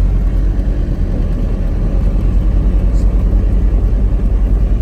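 Low, steady rumble of a vehicle riding along a road. Its loudness pulses quickly through the second half.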